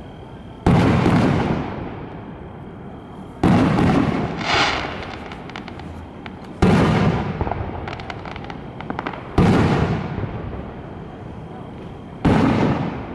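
Aerial firework shells bursting overhead: five loud booms about three seconds apart, each dying away over a second or so. Near the middle comes a quick run of crackles.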